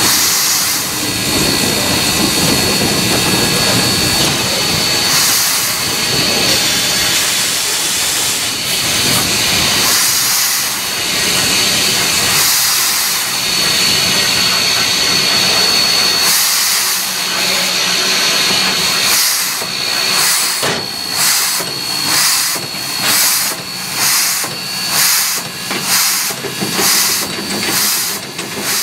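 Steam locomotive Mikado No. 3025 (a 2-8-2) heard from inside its cab: a loud, steady steam hiss with a thin high whistle-like tone running through it. From about halfway in, the exhaust beats come through as regular chuffs, about one and a half a second, as the engine works along.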